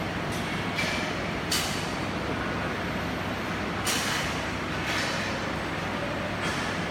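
Steady workshop noise with three short hissing surges: about a second in, at about one and a half seconds, and at about four seconds.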